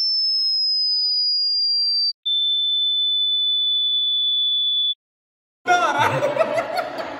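Electronic beep tones dubbed over the sound: a high, pure tone sliding slowly down in pitch, then after a brief break a steady, lower pure tone for about two and a half seconds, with nothing else audible under them. The tone cuts off about five seconds in, and after a short silence men's laughter and talk come in.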